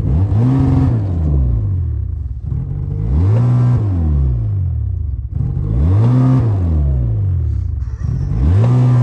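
Snowmobile engine revved up and let back down four times, about three seconds apart, while the sled is having trouble getting going.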